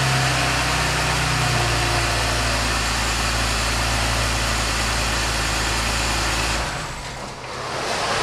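BMW M54 straight-six idling steadily in a 2001 Z3, started just after an oil change so that the new oil circulates before the level is checked. Its idle dips slightly in pitch just under two seconds in. The low engine drone drops out about six and a half seconds in, leaving a fainter hiss.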